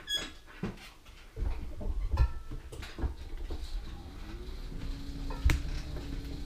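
Mobility scooter on the move, carrying a camera mount: low rumble and rattling set in about a second and a half in, a steady motor whine comes up near the middle and holds, and there is a sharp knock about five and a half seconds in.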